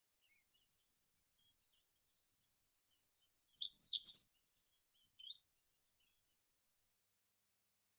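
Songbirds singing in short, high phrases: faint twittering about a second in, a loud, quick phrase of chirps near the middle, then a few short falling notes.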